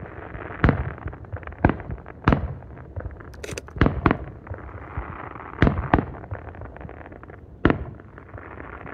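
Fireworks display: aerial shells bursting with sharp bangs, about eight of them with irregular gaps and some in quick pairs. A constant crackling and hissing from the stars and rising tails fills the spaces between, and the last bang comes near the end.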